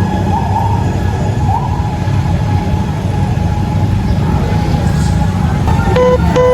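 Fire truck on an emergency run: a heavy low engine and road rumble, with its siren faintly sweeping upward in short rising wails during the first couple of seconds. A string of short, evenly spaced electronic beeps starts near the end.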